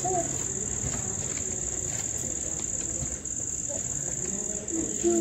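Crickets trilling: one steady, high-pitched continuous trill that breaks off briefly twice, a little after three seconds in and again near the end.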